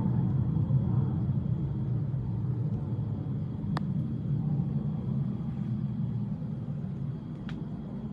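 Distant military jet aircraft: a steady low rumble that slowly fades. There are two faint sharp ticks, one about halfway through and one near the end.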